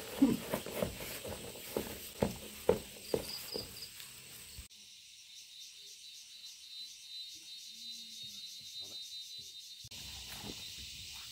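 A few soft knocks like footsteps on grass. About four and a half seconds in, the sound cuts abruptly to a high, even chirring of crickets that lasts about five seconds, and then the knocks return.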